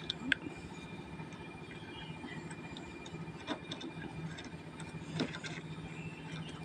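A few faint, sharp metallic clicks and taps as a screwdriver works the terminal screw of a sealed lead-acid e-bike battery, fastening a cable lug, over a faint steady hum.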